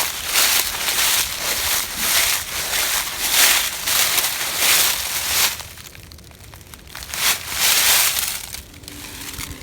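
Footsteps crunching through dry fallen leaves, a step about every half second, with a short pause past the middle before a few more steps.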